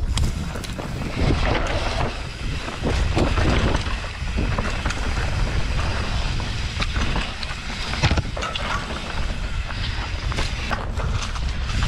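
Mountain bike riding a dirt trail: wind buffeting the microphone over a steady rumble of tyres on the ground, with scattered knocks and clatters from the bike.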